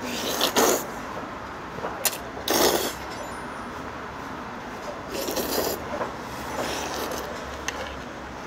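A person slurping up mouthfuls of thick noodles in several short, noisy slurps a couple of seconds apart, with a couple of brief clicks between them.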